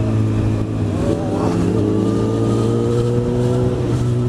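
Motorcycle engine running under way, its pitch rising slowly and then dropping back a little near the end, with a steady rush of wind noise.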